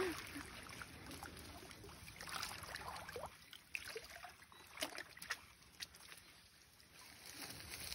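Faint splashing and sloshing of shallow muddy water as hands rummage and pull through water hyacinth, with scattered small drips and clicks.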